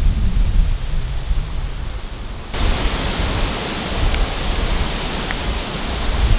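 Wind buffeting the microphone with a low rumble. A louder, steady rushing hiss of wind comes in suddenly about two and a half seconds in.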